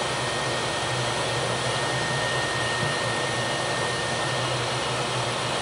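Steady machinery and ventilation noise of a ship's engineering spaces: a dense, even rush with a low hum underneath and a faint steady high tone running through most of it.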